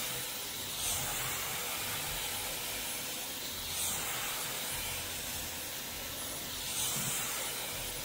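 Dyson hair dryer with its comb attachment running, a steady rush of air with a faint high whine, swelling slightly every few seconds as it is swept through the hair.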